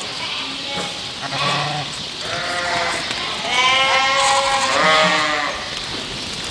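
A flock of sheep bleating as they crowd together, several calls overlapping, with two long, wavering bleats, the loudest, about halfway through.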